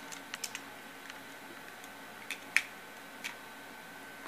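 Light clicks and taps of small die-cast toy trucks being handled and repositioned in the fingers: a few scattered ticks, the sharpest about two and a half seconds in.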